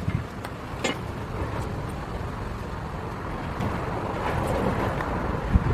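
An 8-gallon McGraw air compressor running with a steady low rumble, with light clicks from a stain can and a plastic spray-gun cup being handled, and a couple of heavier thumps near the end.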